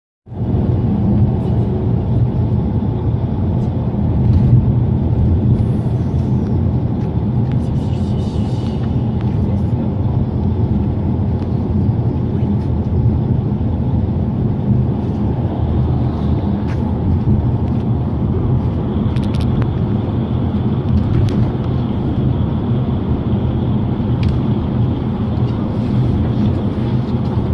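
Steady low rumble of a vehicle in motion, its engine and road noise running evenly.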